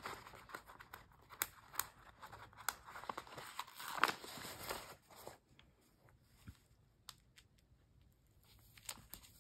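Faint rustling and light clicks of alphabet stickers being peeled from their backing sheet and pressed onto a paper page, quieter after about five seconds.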